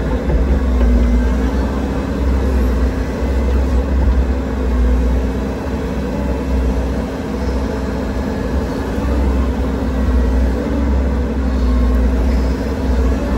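Bobcat compact excavator's diesel engine running steadily at working revs, about 1,800–1,900 rpm, while the arm digs and dumps soil, heard from inside the operator's cab. A deep steady drone with a hum above it that wavers slightly in pitch.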